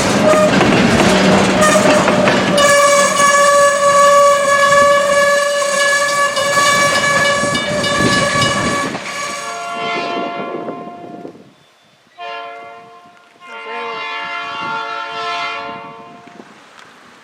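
A diesel locomotive's multi-chime air horn, SRY 110's Nathan P5, which is described as very fouled, sounding a long held blast over the rumble and clatter of the train. After a cut it sounds again in three shorter blasts with brief gaps.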